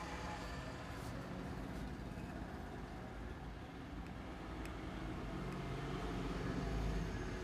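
Steady low background rumble with a few faint ticks; no speech.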